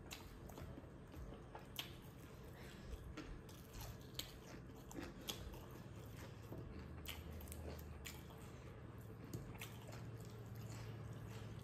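Close-up eating sounds: a mouth chewing rice, with small wet clicks and smacks scattered throughout. A faint low steady hum comes in about halfway through.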